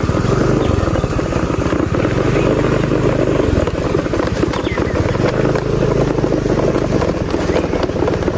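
Motorcycle engine running steadily while the bike is ridden, heard from on board.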